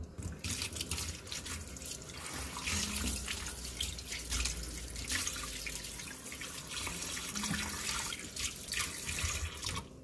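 Tap water running into a bowl in a stainless steel sink and splashing over a raw octopus as hands rub and rinse it. The water cuts off just before the end.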